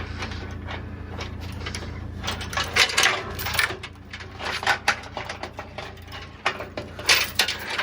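Steel tie-down chains rattling and clanking as they are unhooked from a car on a trailer, in a run of sharp metallic clicks and clanks. Under it is a steady low engine hum that fades about halfway through.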